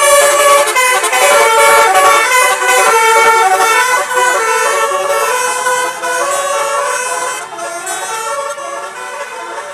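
Bus telolet horn: a tour bus's multi-tone musical horn playing a quick melody of stepping tones, growing quieter over the last few seconds.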